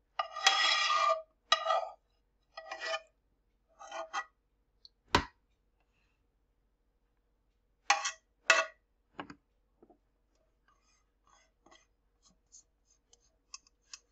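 Metal spoon scraping thick stew out of a pot into a plastic container: a run of short scrapes, a sharp knock about five seconds in, two more scrapes near eight seconds, then faint ticks.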